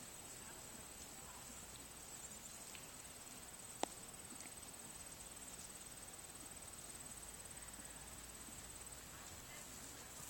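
Faint open-air ambience with a steady high-pitched insect trill, and one sharp click about four seconds in.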